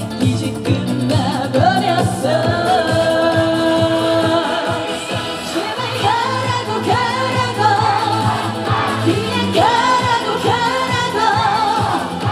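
Live trot song: a female voice sings long, scooped notes with vibrato over band backing.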